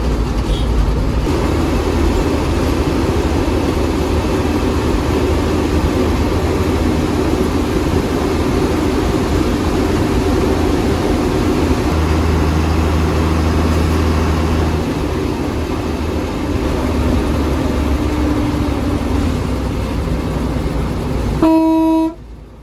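Bus diesel engine running steadily on the move, with one short horn toot near the end.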